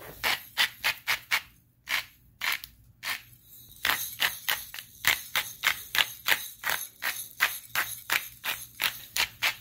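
Hand spice mill grinding seasoning onto raw steaks, a quick run of short crunchy grinds at about three a second, with brief pauses around two and three seconds in.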